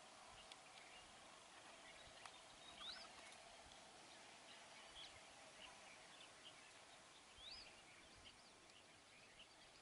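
Faint wetland ambience with scattered short bird chirps and calls from small birds. Two clearer upward-hooked notes stand out, about three seconds in and again past the middle.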